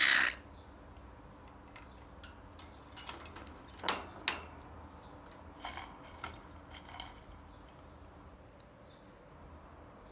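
Scattered metallic clicks and clinks of an African grey parrot's beak knocking against the stainless steel bowl it sits in. There is a loud clink at the start, a cluster about three to four seconds in, and a few lighter taps around six to seven seconds.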